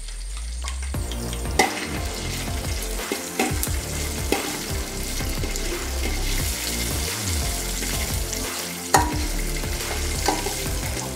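Cashew nuts sizzling as they fry in hot ghee in a steel pan, stirred with a spoon that clicks against the pan a few times.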